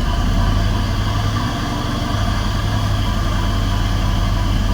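GM 3800 V6 engine idling steadily just after starting, with its cylinder 2 and 4 injector wiring newly corrected after a misfire. It sounds like it is running better.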